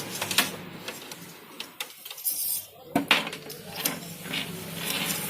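Sharp clicks and light knocks of metal and plastic parts being handled and fitted inside a printer during reassembly, with short scraping sounds and a steady low hum behind them.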